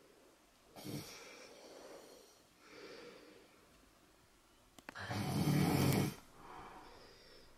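A sleeping baby breathing with soft snores: three slow breaths, the loudest one about five seconds in.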